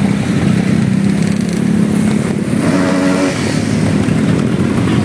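A procession of motorcycles riding slowly past, their engines running steadily, with a short higher-pitched tone a little past halfway.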